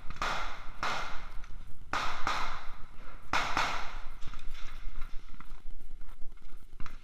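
Nylon backpack being handled and packed: several sharp swishes and knocks of fabric, straps and gear, bunched in the first four seconds and fainter after.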